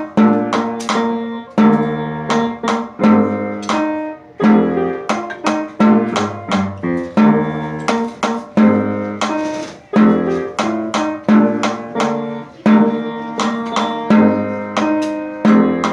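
Instrumental music: a brisk tune of sharply attacked, quickly decaying notes in a steady rhythm, sounding like a plucked string instrument.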